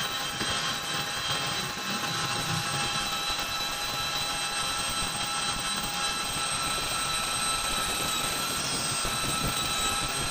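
Machine tool running steadily: a constant high whine of several fixed tones over an even hiss.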